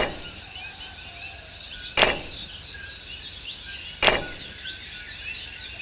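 Three sharp knocks, evenly spaced about two seconds apart, over continuous chirping of many small birds.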